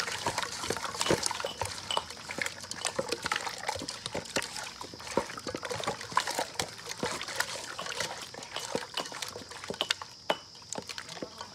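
Hands mixing raw chicken pieces in a wet marinade in an aluminium pot: continuous irregular wet squelching and slapping.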